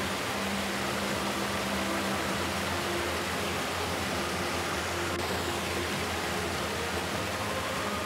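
Steady rushing hiss of a waterfall, water falling into a pool, with a few faint steady tones underneath.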